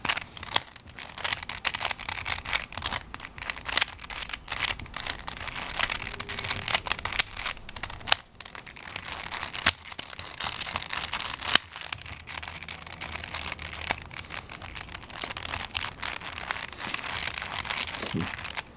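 Plastic layers of a Rubik's Cube Twist puzzle being turned by hand: a steady run of quick clicks and rattles, with a few sharper clacks.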